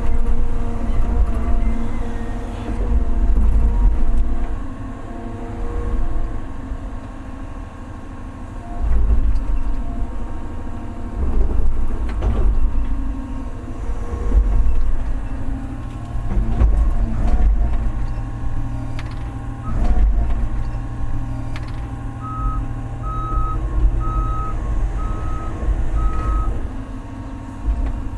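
Large excavator working, its diesel engine swelling and easing under hydraulic load, with several sharp knocks of the bucket against rock. Near the end its travel alarm beeps five times, about once a second.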